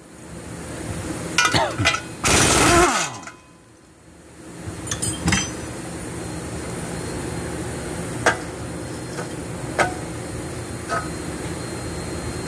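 Workshop tools on exhaust bolts: two loud bursts of noise in the first three seconds, then a steady hum with a few sharp metal clinks, as the bolts of an exhaust flex pipe are loosened and taken out.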